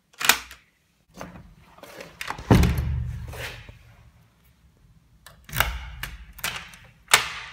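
A door being unlocked and shut: several separate clicks and thuds as the thumb-turn lock knob is turned and the door moves, the heaviest a thud with a low rumble about two and a half seconds in, followed by more thuds and a sharp click near the end.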